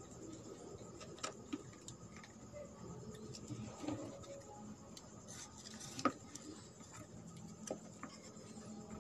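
Faint taps, clicks and light rustling of hands handling cardboard mock-up computer parts in a cardboard box, with a few sharper taps scattered through.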